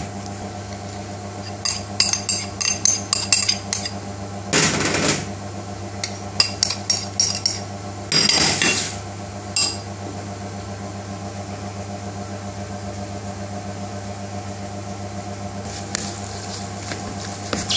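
A metal spoon clinking and scraping while mashing and mixing potato in a plastic bowl. There are two runs of quick clinks and two short swishing bursts in the first nine seconds, then mostly a steady low hum.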